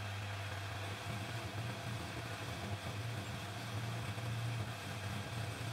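Homemade metal lathe running, its motor and spindle turning a long round bar in the chuck with a steady hum.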